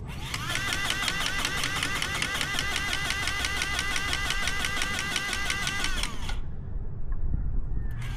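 Powered grease gun pumping grease into the dozer's fittings, its motor whine dipping in pitch with each rapid pump stroke. It runs for about six seconds, stops, then starts again near the end.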